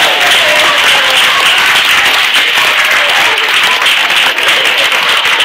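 Audience applauding: dense, steady clapping from a crowd of many hands, right after a children's choir song ends.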